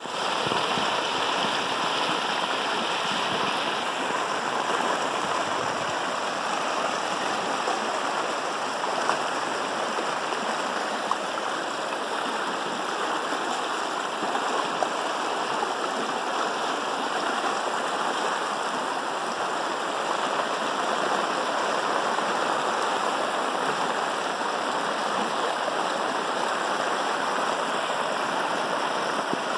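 Heavy rain and fast, muddy floodwater rushing down a flooded dirt road, making a steady roar of water.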